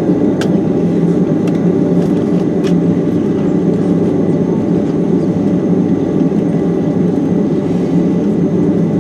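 Steady jet engine and airflow noise heard inside the cabin of a Boeing 767-300, with a couple of faint clicks in the first few seconds.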